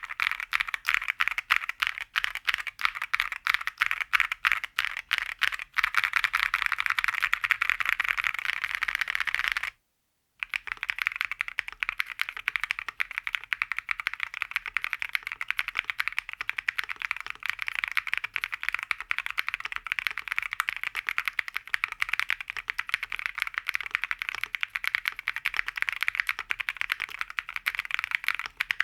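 Mechanical keyboard with TECSEE Diamond switches in a gasket-mounted acrylic case being typed on quickly, a dense run of key clicks. The typing gets faster and denser after about six seconds, stops for half a second about ten seconds in, then resumes at a steady pace.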